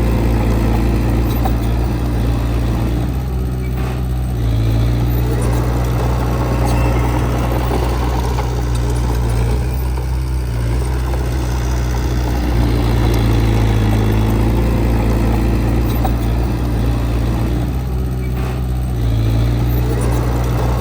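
Diesel engine of heavy earthmoving equipment running steadily, its note easing off and coming back about three, ten and eighteen seconds in as the load changes.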